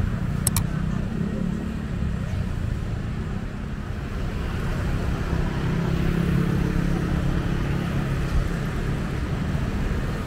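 Steady rumble of road traffic, cars passing on a city street, with one vehicle's engine hum swelling about six seconds in.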